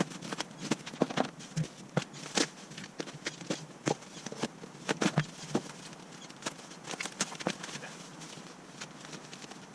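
Irregular clicks, taps and crackles of packaging being handled while unboxing an intercooler, busiest in the first half and sparser toward the end.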